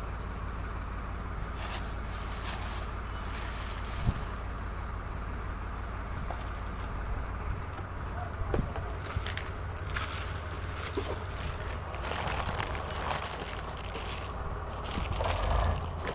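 Paper wrapping and cardboard boxes rustling and crinkling as they are handled and unpacked, busier from about halfway through, with a single knock about four seconds in. A steady low hum runs underneath.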